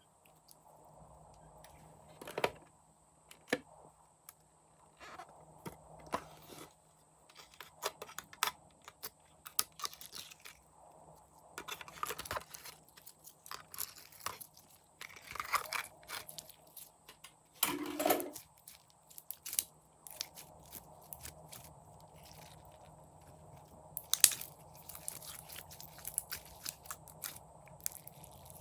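Slime being squeezed and poked by hand, giving irregular crunchy clicks and crackles, some in quick clusters.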